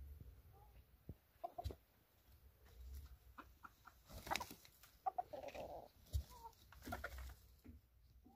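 Chickens clucking: scattered short clucks and calls from a small flock of hens, a few of them louder about halfway through.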